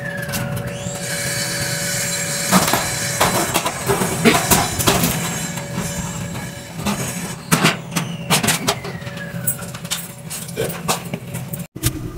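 A metal recessed ceiling light fixture being handled and pried loose from the ceiling: scattered clanks and knocks, with a metal scrape that squeals, falling in pitch, about eight seconds in, over a steady hum.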